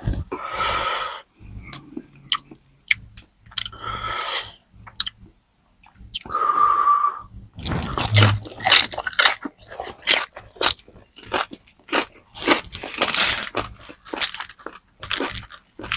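Close-miked eating of crispy pata, deep-fried pork knuckle: crackly crunching and chewing bites, denser in the second half, with a few breathy sounds in between.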